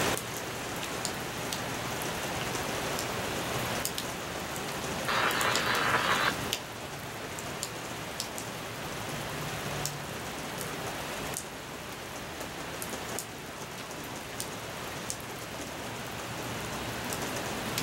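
Steady rain falling, with scattered sharp drips ticking close by. A louder hiss rises for about a second and a half around five seconds in.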